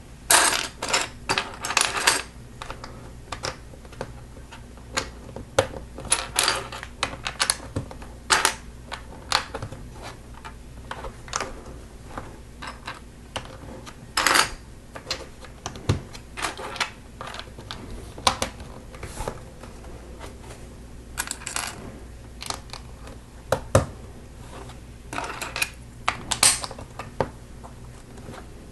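LEGO bricks clicking and clacking as they are picked out of a pile, sorted and pressed onto a plate: irregular sharp plastic clicks, some in quick clusters, over a low steady hum.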